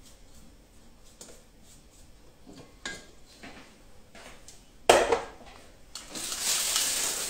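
Quiet kitchen handling with a few light clicks, then a single sharp kitchenware knock about five seconds in. From about a second later, a disposable plastic piping bag standing in a glass rustles steadily as it is handled.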